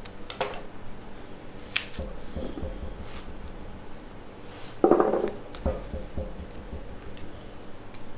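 Butcher's twine being drawn tight and knotted around a rib of beef, with short scratchy string-and-knife handling sounds and one louder knock about five seconds in, over a faint steady hum.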